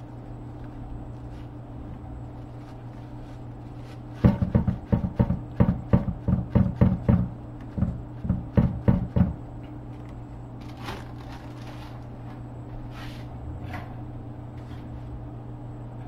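A run of loud dull knocks, roughly three a second for about five seconds, over a steady low hum.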